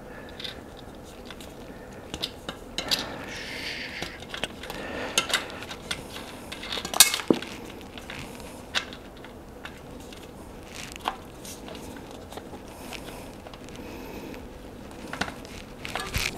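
Hands forcing a tight road-bike tire bead onto a carbon rim: scattered clicks, scrapes and rubbing of rubber against the rim, with a sharper snap about seven seconds in.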